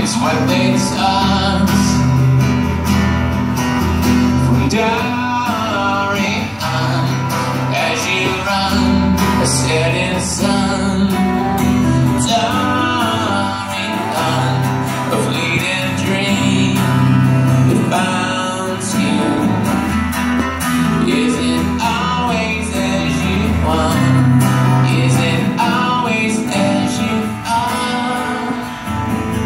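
Acoustic guitar strummed steadily while a man sings into a microphone: a live acoustic song.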